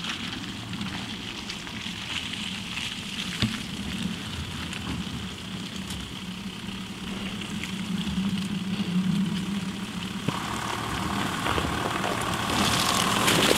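Volkswagen Amarok's V6 turbodiesel engine pulling the pickup slowly through a muddy rut, a steady low engine note that grows louder as it approaches.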